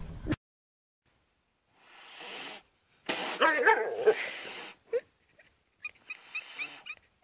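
A cat's hoarse, cough-like calls: a breathy sound about two seconds in, then a loud, wavering, raspy cry lasting over a second, and a shorter noisy call near the end.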